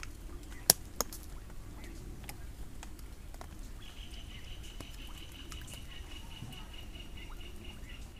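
Outdoor ambience by a pond: a low steady rumble, two sharp clicks about a second in, and a steady high-pitched tone that starts about halfway through.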